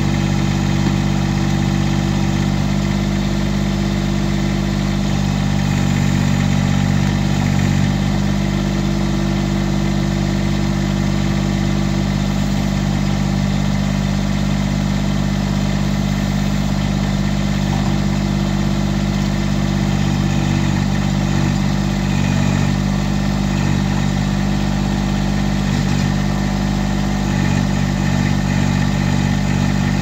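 Massey Ferguson GC1710 sub-compact tractor's three-cylinder diesel engine running steadily while it powers the backhoe digging out a stump.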